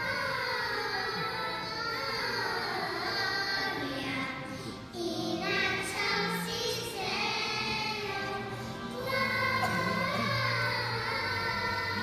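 Children's choir singing together, with a brief break between phrases about five seconds in.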